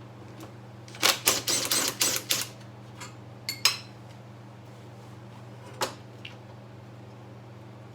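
Small metal parts and hand tools clicking and clattering during carburettor disassembly: a quick run of clinks about a second in, then a few single clicks, over a steady low hum.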